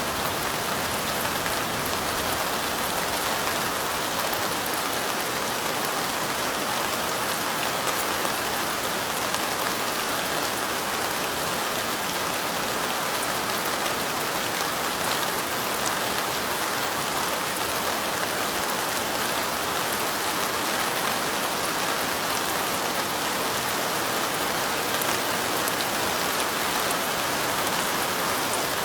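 Steady light rain, a continuous even hiss of falling drops with fine pattering ticks, unchanging throughout.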